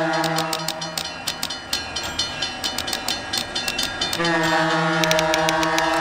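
Music track built from sound effects: a train horn sounds as a long held chord, breaks off about a second and a half in and comes back just after four seconds, over quick typewriter key clacks.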